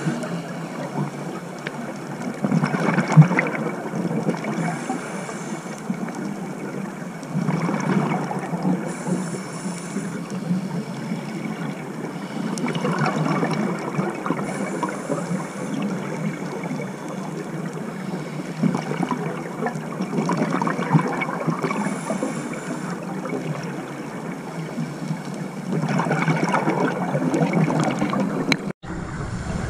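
Scuba diver breathing through a regulator underwater: a short hiss on each inhale and a louder gush of exhaled bubbles, about every five seconds.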